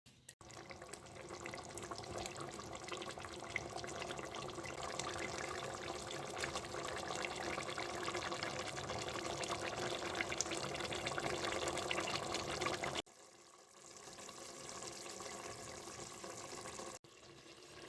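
Water running steadily from a tap into a sink or vessel. It cuts off abruptly about thirteen seconds in, comes back quieter, and breaks again about seventeen seconds in.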